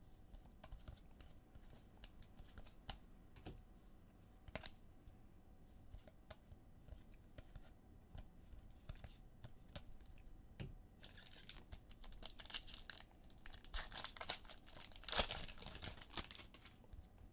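Trading cards and their plastic packaging being handled at a table: faint soft clicks of cards being flipped, then, from about two-thirds of the way in, a few seconds of rustling and crinkling, loudest near the end.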